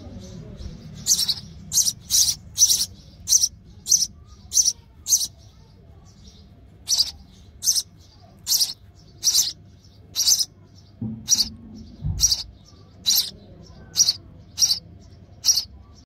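House sparrows chirping at the nest: a long series of short, sharp, high chirps, a little over one a second, with a pause of about a second and a half some five seconds in.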